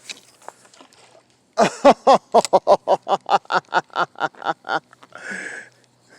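A quick run of about fourteen pitched calls, four or five a second, loudest at first and fading away, followed by a brief rushing noise near the end.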